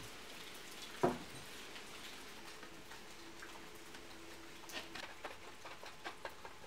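Hand scraper scraping caked grease and rust off the Dana 25 front axle housing, with a run of small ticks and clicks near the end as flakes of crud fall onto the concrete floor. One sharp knock about a second in.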